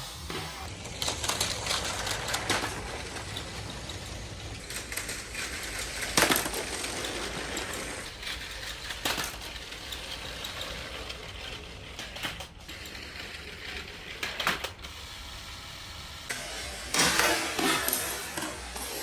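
LEGO pieces clattering and scattering in a series of sharp crashes, over a steady low rumble.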